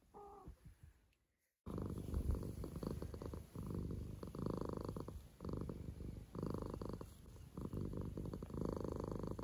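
A cat purring close up, in repeating breath cycles with short dips between them; it starts after a brief silence about a second and a half in.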